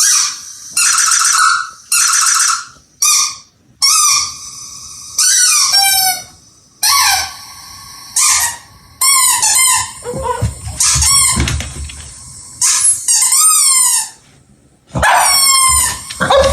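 Repeated high-pitched squeaks from a squeaky toy bird: short single squeaks alternating with quick trains of rising-and-falling chirps. Low scuffling thumps come in around the middle and again near the end.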